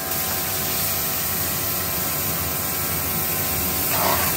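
Stir-frying in a wok over a restaurant gas burner: a steady rushing hiss of the burner and sizzling food. The sizzling and stirring get busier near the end.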